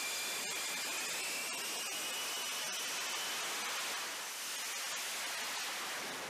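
F-35B's single turbofan engine running at high power on a ship's flight deck: a steady rushing hiss with a faint high whine that climbs slightly in pitch over the first few seconds, then fades into the hiss.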